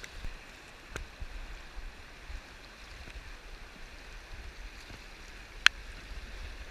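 Steady rush of a flowing river with a low rumble underneath. A sharp click sounds about a second in, and a louder one about two-thirds of the way through.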